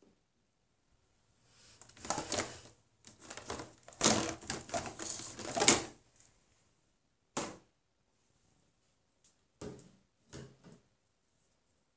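Plastic paint bottles being handled: bursts of clattering for a few seconds, then three short separate knocks.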